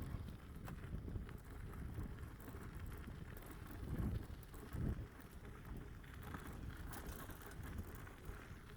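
Wind rumbling on the microphone while riding a bicycle, with faint clicks, and two short thumps about four and five seconds in.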